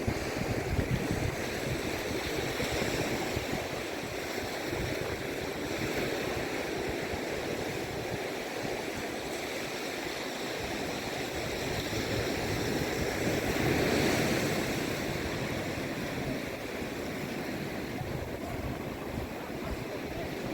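Ocean surf breaking and washing up a beach, a steady rush that swells to its loudest about two-thirds of the way through, with wind buffeting the microphone.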